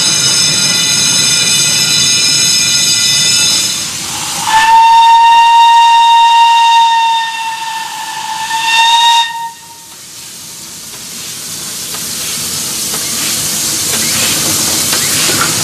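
L&YR 'Pug' 0-4-0 saddle tank steam locomotive sounding its whistle: one long steady note of nearly five seconds that cuts off sharply, followed by a hiss of steam that grows louder as the engine approaches. Before the whistle, a high steady squeal with many overtones stops suddenly.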